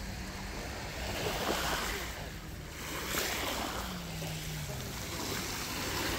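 Sea waves washing onto the shore, a rushing sound that swells and fades every couple of seconds. A faint low hum that wavers in pitch runs underneath.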